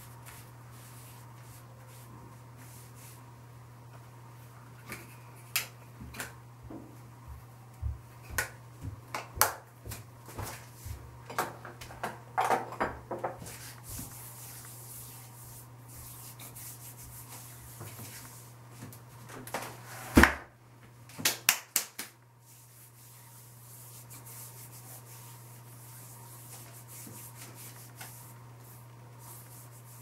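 Hands patting and rubbing skin on the face and neck: a scatter of soft slaps and short clicks, with the loudest sharp clicks in a cluster about two-thirds of the way in, over a steady low hum.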